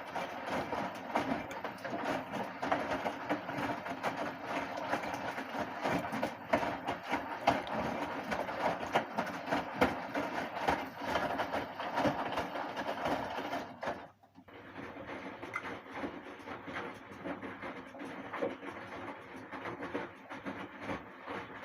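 Hotpoint inverter-motor washing machine running a wash: water swishing and clothes tumbling in the drum, with a rapid patter of small clicks and knocks. The sound breaks off briefly about 14 seconds in, then carries on a little quieter.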